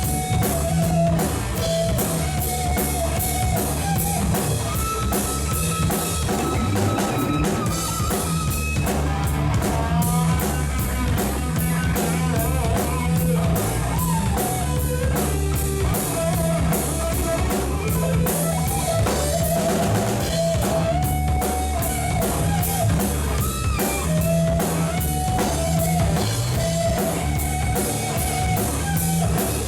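A rock band playing: drum kit, bass and electric guitar with a steady beat, under a wandering melody line.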